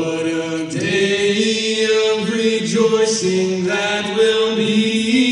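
Two men singing a gospel song in two-part harmony, holding long sustained notes.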